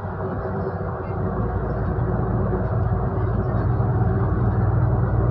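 Solaris Urbino 12 IV city bus driving, heard from inside near the front: a steady engine and drivetrain drone with road noise, growing louder about a second in as the bus pulls along.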